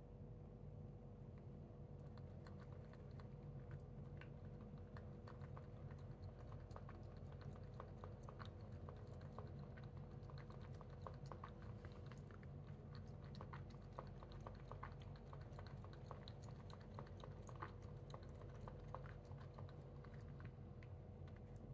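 Cat lapping water, a run of faint, quick wet clicks that starts about two seconds in and keeps on.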